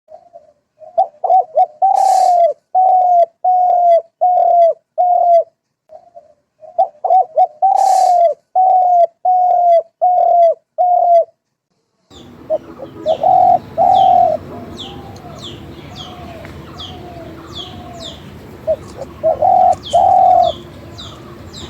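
Birds calling: one bird repeats a low hooting note about twice a second in two runs. About halfway in, a steady background hiss comes up, and the low notes go on under a quick series of short high chirps from another bird.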